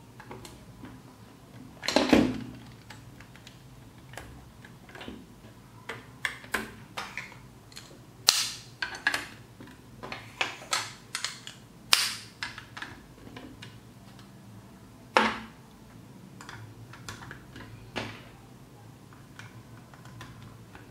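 Large plastic building blocks clicking and clacking as pieces are handled and pressed together, an irregular run of sharp clicks with a few louder snaps at about 2, 8, 12 and 15 seconds in.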